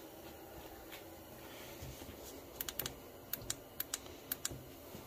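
Craftsman cordless underhood work light clicking as it is adjusted: a quick run of about nine sharp clicks in the second half.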